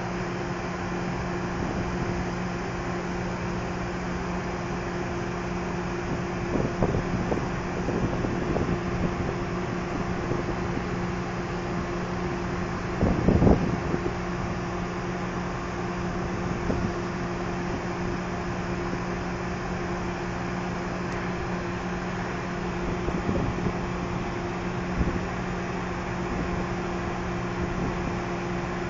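Steady low hum of a container ship's machinery with a constant pitched drone. A few short rumbles of wind on the microphone, the strongest about 13 seconds in.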